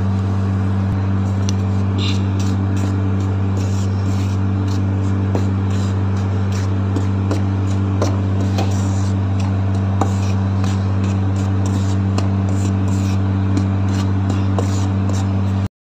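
A steady low hum with faint scraping and light ticks of a wooden spatula stirring dry flour as it toasts in a pan. The sound cuts off abruptly near the end.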